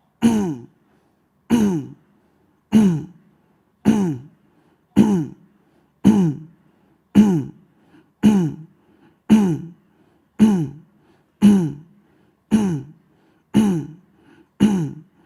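A man's short throat-clearing grunts made with the mouth closed, repeated about once a second, each one falling in pitch. It is a deliberate throat-cleansing exercise.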